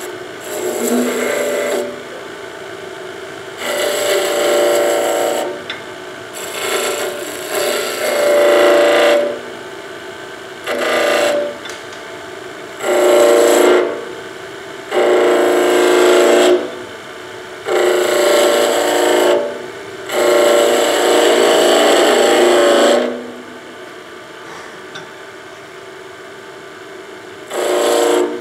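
Skew chisel cutting a spinning wooden spindle on a wood lathe: about ten cutting passes, each one to three seconds long, with the lathe running more quietly between them and a longer pause near the end.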